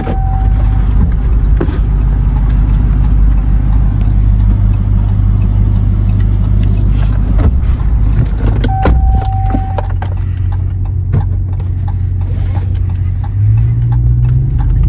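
Road vehicle's engine running steadily with a low drone, its note stepping up near the end as it speeds up. A short steady beep sounds at the start and again about nine seconds in.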